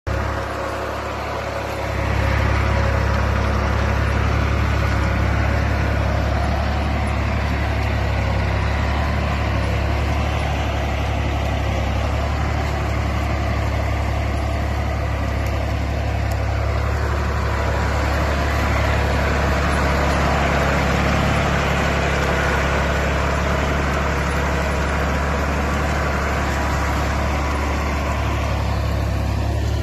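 SAME Minitauro 50 tractor's air-cooled diesel engine running steadily as the tractor pulls a plough through the soil. It grows louder about two seconds in, then holds an even, low drone.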